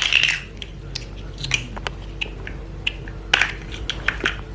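Plastic toy building blocks clicking and clacking as they are handled and fitted together: a string of irregular sharp clicks, the loudest a little past three seconds in.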